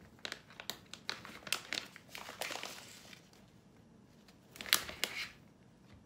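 A packet crinkling and rustling as it is handled, with a run of short crinkles through the first few seconds and one louder rustle about five seconds in.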